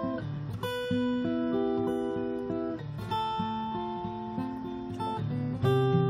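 Background instrumental music: a melody of plucked notes over a lower accompanying line.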